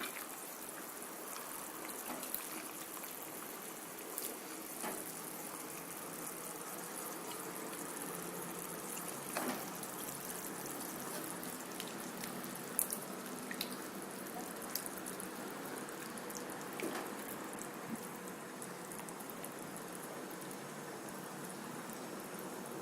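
A pot of chicken pieces with grated coconut, spice paste and water simmering: a steady faint bubbling with a few light clicks, the liquid cooking down.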